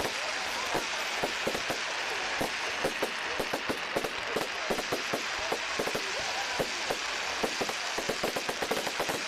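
Fireworks crackling: a dense run of rapid, irregular small pops over a steady hiss, as from crackling-star shells bursting overhead.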